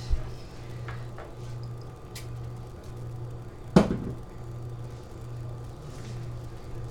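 A low hum that swells and fades in stretches of about a second, with a single sharp knock about four seconds in.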